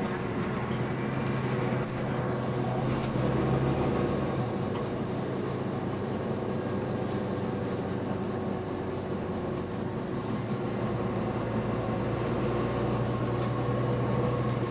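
Bus engine running under way, a steady drone heard from on board with a faint high whine that slowly rises and falls and a few scattered rattles. The bus has an exhaust leak.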